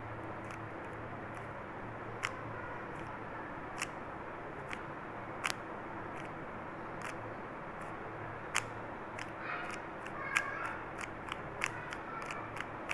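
Stickerless 3x3 plastic speed cube being turned by hand: short, sharp clicks as its layers are twisted, scattered at first and coming in quicker runs near the end, over a steady background hiss.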